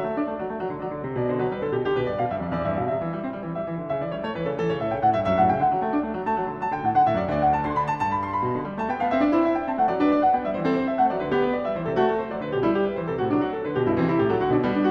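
Background music: solo piano playing a Baroque keyboard piece in G major, with quick running notes.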